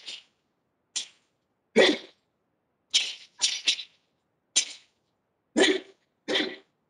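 Karate student's sharp, forceful exhalations with each technique of a kata, about nine short hissing bursts roughly one to two a second, two of them heavier, with dead silence in between.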